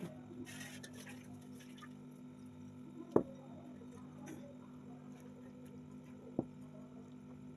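Soft, faint squishing and patter of food being mixed and eaten, over a steady low hum, with two short sharp clicks about three seconds apart.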